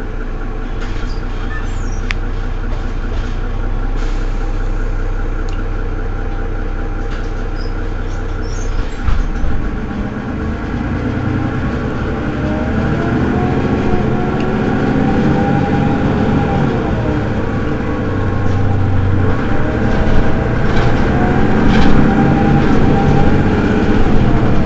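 Mercedes-Benz Citaro city bus engine idling while the bus stands still, a steady hum. From about ten seconds in it grows fuller and slowly louder, with a pitch that rises and falls.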